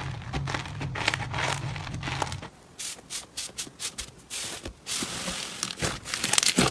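Slime being squeezed and pressed by hand, giving a run of crackles and pops; over a low hum for the first couple of seconds, then as separate sharp pops with short gaps.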